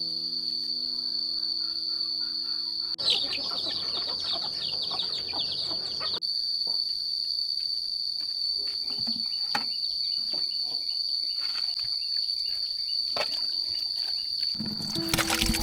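Crickets or similar insects chirring in one steady high-pitched drone. About three seconds in, a louder, scratchy, busy sound lasts about three seconds and stops abruptly; sustained musical notes fade out near the start and come back near the end.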